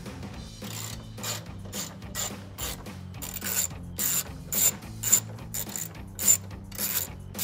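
Hand socket ratchet clicking in short, even strokes, about two or three clicks a second, as it backs out a headlight assembly mounting bolt.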